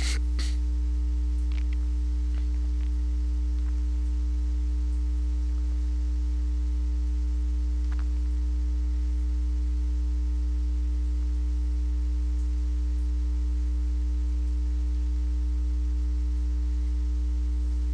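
Steady low electrical mains hum in the recording, with a few faint ticks.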